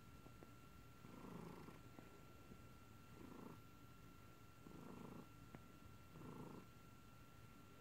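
Domestic cat purring softly, the purr swelling four times at a slow, regular rhythm, about every one and a half to two seconds.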